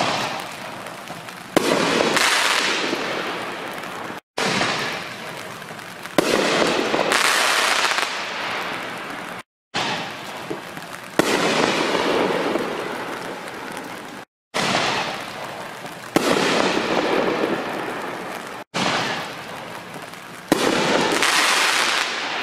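6-inch canister fireworks shells going off one after another, five times. Each starts with a sharp bang, then about a second and a half to two seconds later comes a louder, longer boom that fades out over a few seconds.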